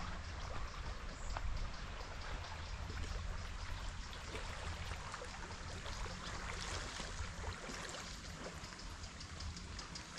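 Small waves lapping at a stony lake shore: a soft, steady wash of water with faint small splashes, more of them in the second half, over a low rumble of wind on the microphone.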